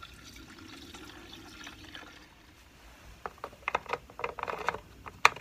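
Fuel being poured from a plastic jug into a Stihl MS390 chainsaw's fuel tank, a faint trickle for the first couple of seconds. Then comes a run of sharp clicks and knocks as the fuel cap is handled and put back on.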